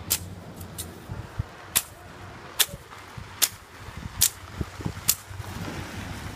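Machete chopping grass: sharp cutting strokes a little under a second apart, about seven in a row, stopping about five seconds in.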